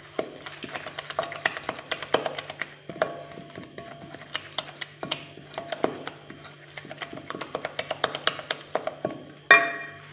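Wooden spoon stirring a crumbly dough in a glass bowl, knocking and scraping against the glass in quick irregular taps that ring briefly. One louder ringing knock comes near the end.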